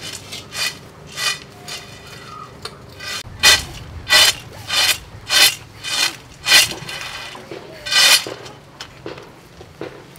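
Peanuts being rubbed and shaken on a metal plate to loosen their papery skins: a run of about ten rasping strokes, evenly spaced at a little under two a second.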